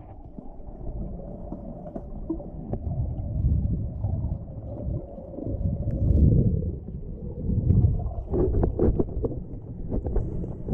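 Muffled underwater sound through a GoPro's waterproof housing: low rumbling water movement that swells and fades several times, with a faint steady hum in the first half. Bubbles and small clicks and crackles come near the end.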